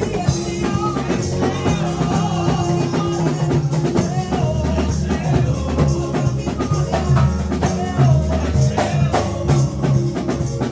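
Church praise music: singing over held bass notes, drums and tambourine keeping a steady beat.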